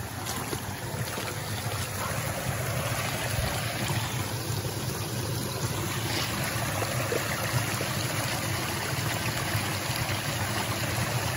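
Steady rushing of running creek water, strongest in the low range and growing a little louder as it goes.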